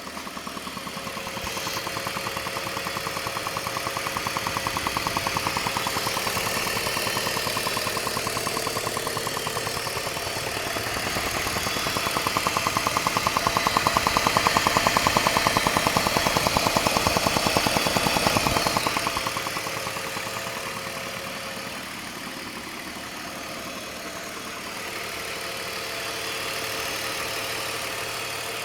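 BMW E39's M54 straight-six engine idling with a fast, even ticking, an odd noise at idle coming from the right side of the engine. The sound grows louder past the middle, then drops back about two-thirds of the way through.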